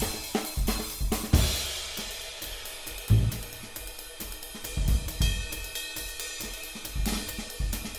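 Band music led by a drum kit: cymbals and hi-hat ring over repeated snare and bass drum strikes.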